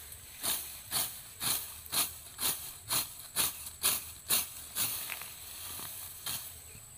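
Grass being cut by hand with a sickle: about ten short swishing cuts in a steady rhythm, roughly two a second, stopping about five seconds in.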